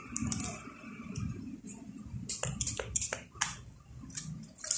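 About a dozen short, sharp clicks and taps at irregular spacing, over low rustling handling noise.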